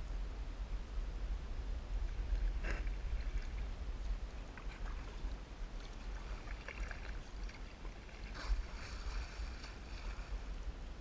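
Water splashing and lapping against a kayak, with a few short sharper splashes and the loudest about eight and a half seconds in, over a low steady rumble on the microphone.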